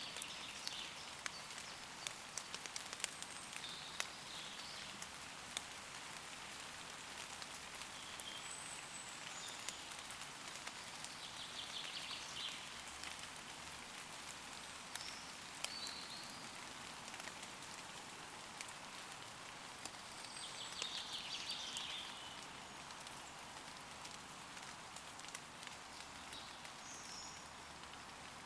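Steady rain falling on leaves, with scattered sharp drops, and birds giving short chirps and trills every few seconds; the longest trills come about twelve and twenty-one seconds in.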